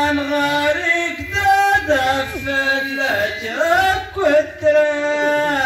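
A man singing a line of tanḍamt, Tashelhit Amazigh sung poetry, solo into a microphone. He holds long notes and slides between pitches, unaccompanied.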